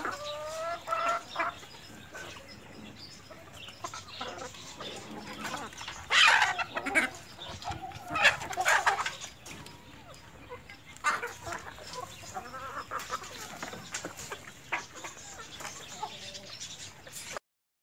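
A flock of Aseel chickens clucking and calling, with two louder bursts of calling about six and eight seconds in. The sound cuts off suddenly just before the end.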